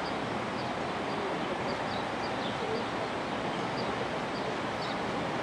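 Small birds giving short high chirps every second or so over a steady din of distant city traffic.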